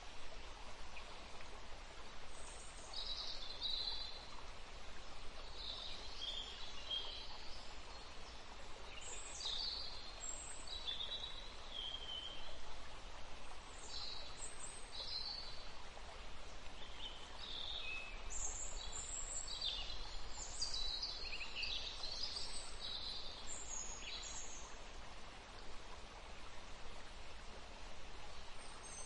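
Outdoor ambience of small birds chirping and calling in short scattered phrases, busier about two-thirds of the way through, over a steady background hiss.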